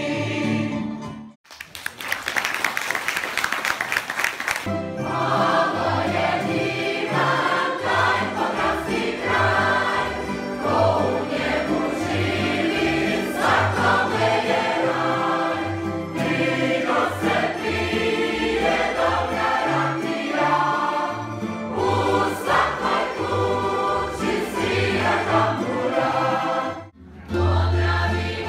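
A mixed choir finishes a song and about three seconds of audience applause follow. Then the choir sings with accordion and guitar accompaniment. Near the end, after a brief break, a tamburica ensemble with double bass starts playing, with the choir.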